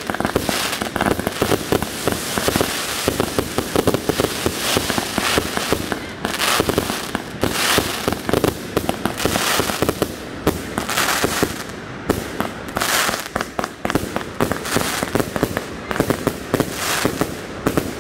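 Consumer firework cakes firing in a rapid, unbroken barrage: many launch reports and bursting aerial breaks a second, overlapping with no pause.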